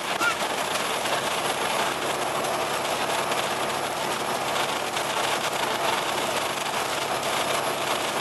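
Cummins ISL8.9 six-cylinder diesel of an Alexander Dennis Enviro500 MMC double-decker bus running steadily, heard from inside the bus together with a constant rush of road and running noise.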